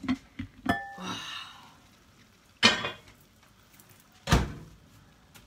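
Heavy cookware being handled: a small ringing clink about half a second in, then two solid thunks about a second and a half apart.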